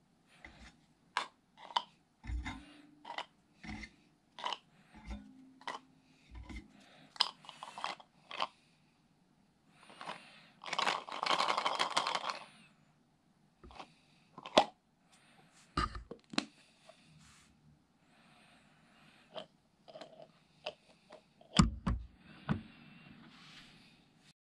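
Clicks, taps and light knocks of a clear plastic storage container being handled as slices of smoked luncheon meat are packed into it, with a louder scraping rustle about eleven seconds in. Near the end comes a heavier knock as the container's latching lid is shut.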